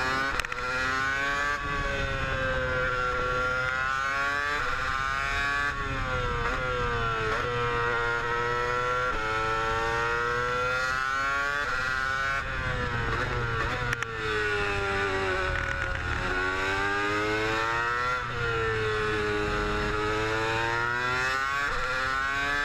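Mercedes Formula One car's engine heard from the cockpit, driven gently on an installation lap: the revs climb and drop again and again through gear changes and corners.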